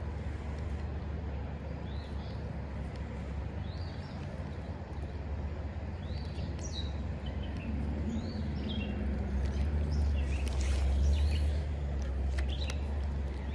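Small birds chirping in short high notes, on and off, over a steady low rumble that swells a little about two-thirds of the way through. A few faint clicks come near the end.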